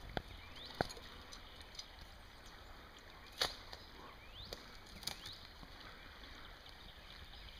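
Footsteps on dry grass and twigs: a few sharp snaps and clicks over a faint, quiet background, the loudest about three and a half seconds in, with short high rising chirps now and then.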